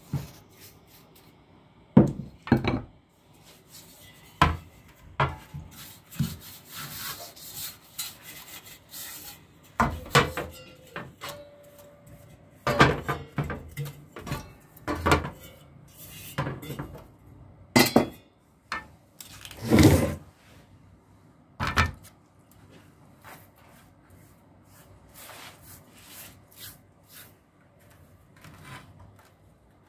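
A paintbrush scrubbing a wet liquid over the cast-metal end cover and stator housing of an old electric motor, bristles rubbing against metal in irregular strokes. Sharp knocks and clatters come in between as the metal parts are handled in a metal tray.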